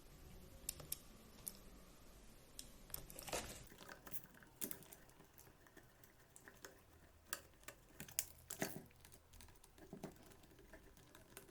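Faint scattered clicks and light rustling from small plastic parts of a 1/16 RC drift car being handled and fitted together by hand, with the sharpest clicks in the middle and second half.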